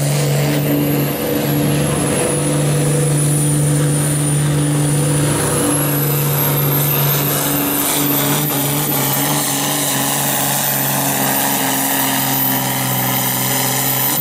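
Pulling-tractor John Deere diesel engine running hard and steady under full load as it drags a weight-transfer sled, with a thin high whistle over it that sinks and then climbs back.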